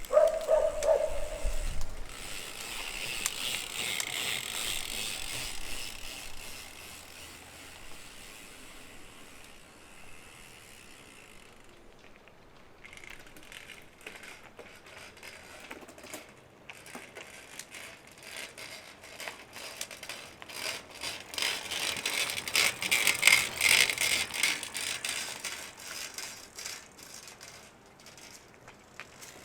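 Shimano XT FH-M8110 Micro Spline rear freehub ratcheting as the wheel turns: a rapid run of clicks that swells twice, at the start and again in the second half. This is the hub the owner says creaks when it needs proper greasing.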